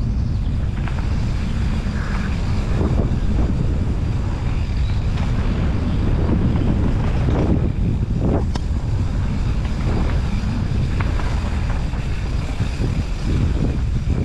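Mountain bike running down a dirt forest trail: wind rushing over the helmet-mounted microphone, with tyre rumble and a few brief knocks as the bike rattles over bumps.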